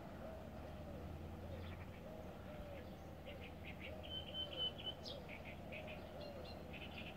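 Birds calling: a low call repeated about twice a second in short runs, with higher chirps and a brief high whistle in the middle.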